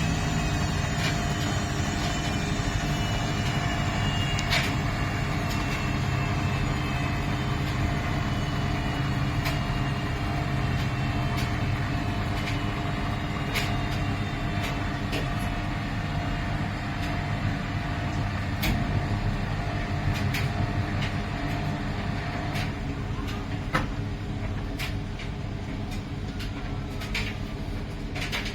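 Miele PW 6080 commercial washing machine running down after a spin: a steady mechanical rumble with a faint motor whine falling slowly in pitch. Scattered sharp clicks come through, and a steady hum cuts off near the end.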